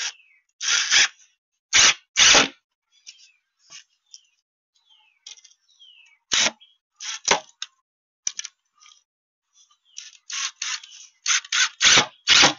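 Wooden boards being handled: irregular short knocks, clatters and scrapes, coming closer together near the end. Birds chirp faintly between them.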